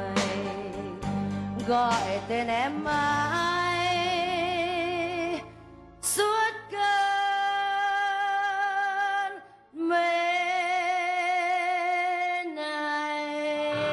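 A woman singing a slow ballad in long, held notes with vibrato over instrumental accompaniment. The phrases break off briefly twice, and the last note is held lower and steadier.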